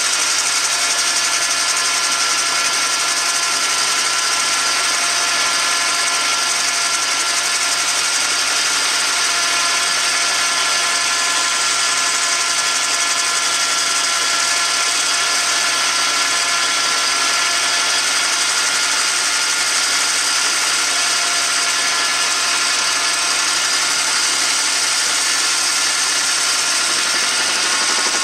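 Metal lathe taking a cutting pass on a metal part: a steady machine whine with several held tones under a high hiss from the tool cutting.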